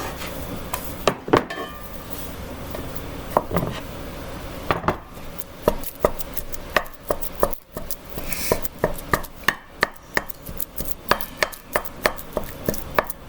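Kitchen knife chopping on a cutting board: scattered knocks at first, then a steady run of about two to three cuts a second through the second half.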